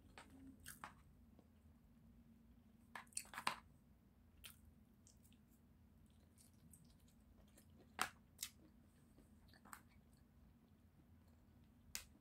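Close-miked chewing of sushi: faint, scattered wet mouth clicks and smacks, with a quick cluster of louder ones about three seconds in and single sharp ones about eight seconds in and near the end.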